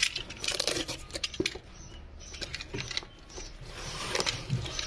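Box cutter blade slicing through packing tape and cardboard: irregular scratching and crackling with sharp clicks.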